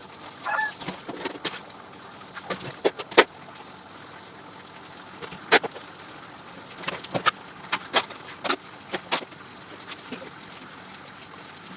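Dishes and metal utensils clinking and knocking against each other as they are handled and washed: a dozen or so sharp, separate knocks at uneven intervals, some ringing briefly.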